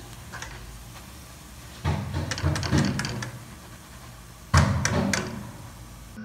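Two loud thumps about three seconds apart, each trailed by a short clatter that dies away within a second, over a low steady hum.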